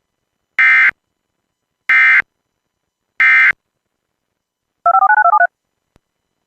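Three short bursts of Emergency Alert System digital data tones, the end-of-message header that closes an EAS alert, about 1.3 seconds apart. A rapid string of touch-tone (DTMF) beeps follows near the end.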